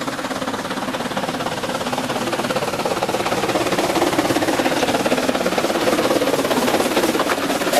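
Narrow-gauge C2 steam locomotive working hard as it approaches, its rapid exhaust beats growing steadily louder.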